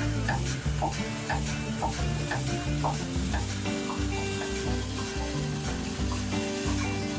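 Background music with a steady beat: a bass line changing notes and a light hiss-like percussion hit about twice a second.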